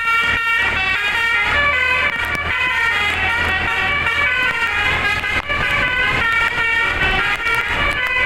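Bus telolet horn, a set of air horns driven by a DAV module, playing a fast tune of quickly changing notes, with a steady low rumble beneath.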